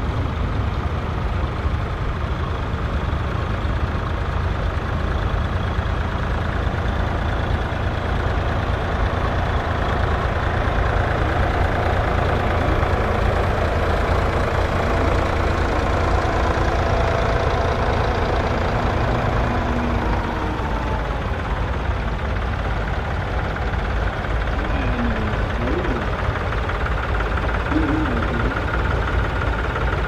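Engines of several vintage Volvo BM tractors running at low revs as they drive slowly past one after another, a steady, overlapping chugging with a strong low rumble.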